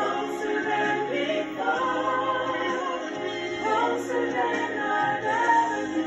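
Recorded worship music: several voices singing together in harmony, in a choir or a cappella style.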